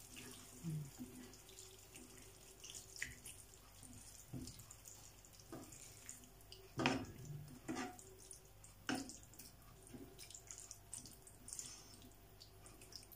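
A spatula stirring thick, wet chilli con carne in a frying pan. The stirring is faint and sloppy, with scattered knocks and scrapes against the pan; the loudest comes about seven seconds in.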